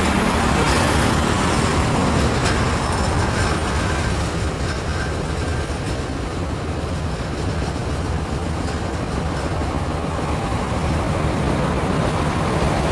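Container freight train's wagons rolling away along the track, a steady rumble and rattle of steel wheels on the rails, easing slightly in the middle and picking up again near the end.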